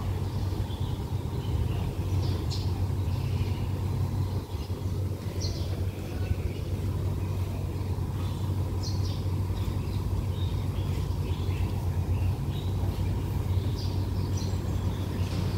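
Diesel engine of a standing train idling, a steady low hum, with short bird chirps scattered over it.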